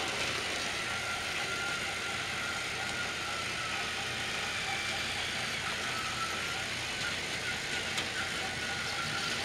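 Battery-powered Trackmaster toy train engines running on plastic track: a steady whir of small electric motors with a thin whine that wavers slightly in pitch.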